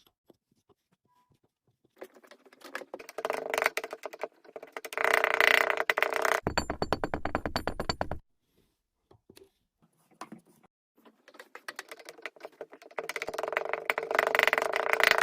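Background synthesizer music in two stretches, each with steady held tones, each ending suddenly as if cut.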